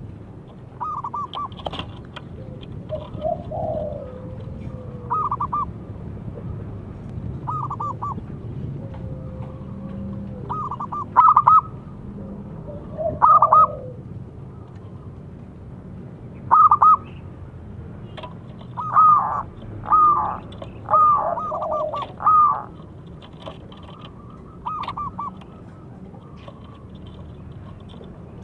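Zebra dove (perkutut) cooing: short phrases of quick staccato notes repeated every few seconds, with a denser run of phrases about two-thirds of the way through.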